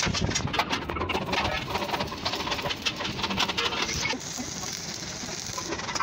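Stick arc welding a pipe fitting onto the top of a steel water-heater tank: irregular crackling and sputtering for about four seconds, then a quieter, steady hiss.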